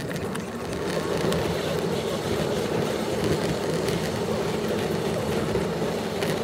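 Car engine and road noise heard from inside the cabin while driving, a steady rumble that grows a little louder about a second in as the car pulls away from the roundabout.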